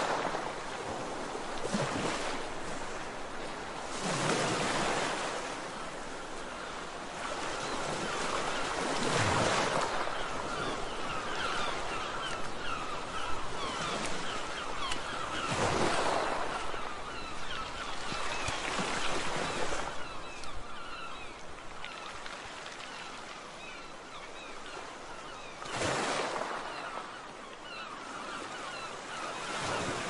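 A large flock of gulls and terns calling over one another in a dense, continuous chatter, over a steady rush of surf that swells into louder surges every few seconds.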